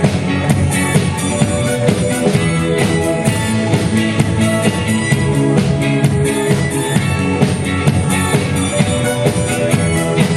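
Instrumental passage of pop-rock band music, with a steady drum beat under sustained chords.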